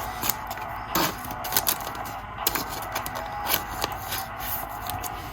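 Trading cards being handled and flipped through: irregular soft clicks and rustles of card stock, over a steady background hiss.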